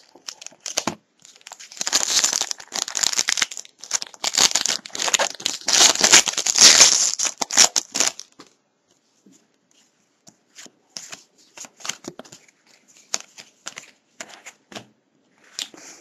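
Wrapper of a trading-card pack crinkling and tearing as it is opened, loud for about six seconds; then softer, scattered rustles and clicks as the cards are handled.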